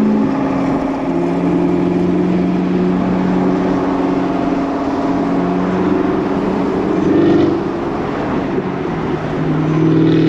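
Chevrolet Camaro ZL1 1LE's supercharged V8 droning at a steady highway cruise over a haze of tyre and road noise. The engine note steps slightly in pitch a few times.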